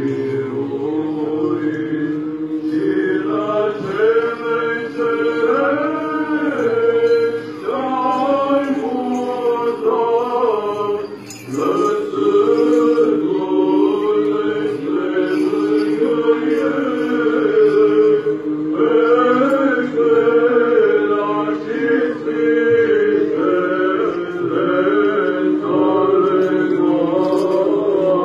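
Orthodox liturgical chant sung by a group of voices, the melody moving over a steady held low drone note, with a brief pause about eleven seconds in.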